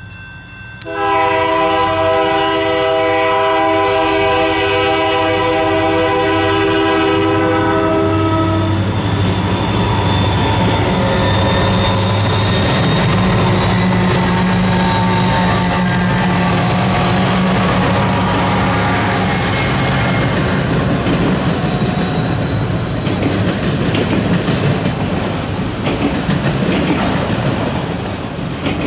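A lash-up of SD40-2F and SD40-2 diesel locomotives sounds a long multi-tone horn blast of about seven seconds as it approaches. It then passes with the steady low drone of its EMD 16-cylinder two-stroke diesel engines. From about twenty seconds in, the engine sound gives way to the rattle and wheel clatter of autorack freight cars rolling by.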